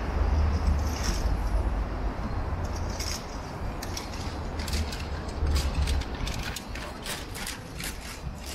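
Street noise heard from a moving bicycle: a steady low rumble of traffic and wind on the microphone. From about halfway through comes a run of light, irregular mechanical clicks, about three or four a second.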